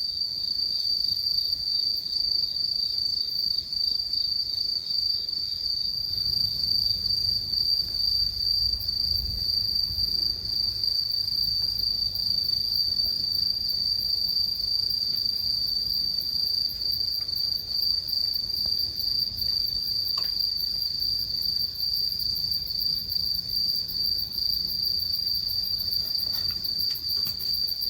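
Night insects, crickets, trilling steadily in one continuous high-pitched drone, with a second, faster pulsing insect chirp much higher up that grows denser toward the end.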